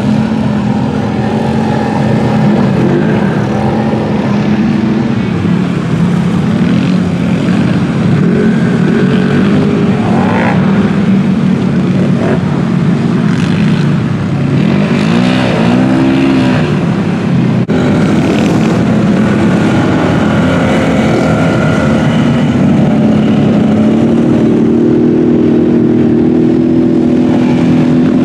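Off-road vehicle engines, a side-by-side UTV and ATVs, running loudly as they churn through mud. The engine note rises and falls several times as the throttle is worked, with a rising rev near the end.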